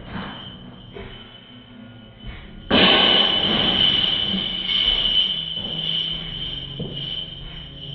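A golf disc striking a metal disc golf basket, heard slowed down in slow motion: a sudden crash about three seconds in that rings and fades over several seconds, over a steady high whine.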